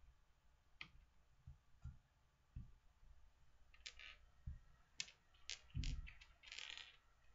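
Faint, scattered clicks and light knocks of small objects being handled on a desk, with a louder low thump a little before six seconds and a brief rustle just after.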